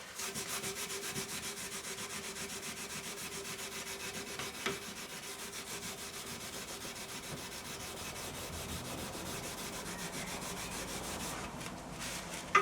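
Rapid, even rubbing strokes on an oak stool frame as dirt and sprayed-on paint are cleaned off the wood, with a steady hum underneath. A brief knock comes about halfway through.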